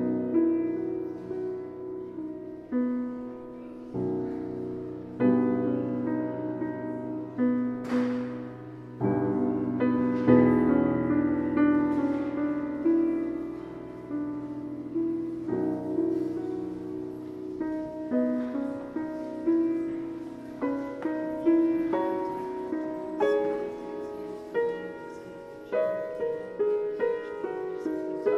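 Solo piano playing a slow hymn improvisation, chords struck one after another and left to ring and fade.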